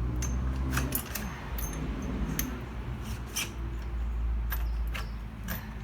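A string of light metal clicks and clinks as the rear axle of a Honda CT125 motorcycle is slid out of the wheel and swingarm, over a low steady hum.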